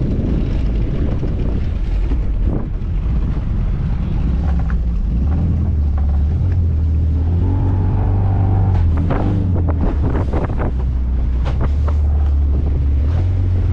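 Small outboard motor running steadily, pushing a small fibreglass boat through choppy sea, with heavy wind on the microphone. Water slaps and splashes against the hull several times in the second half.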